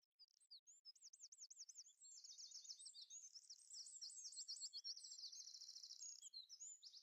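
A songbird singing faintly: several phrases of fast, repeated high chirps and trills.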